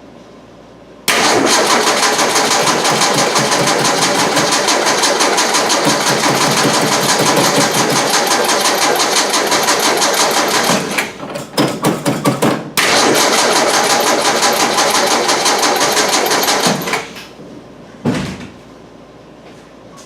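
Car engine being cranked over by the starter motor without catching: one long crank, a few short stabs at the key, then a second long crank that stops. The new mechanical fuel pump has not cured the no-start; the fault lies further along the fuel system, at the filter or carburetor.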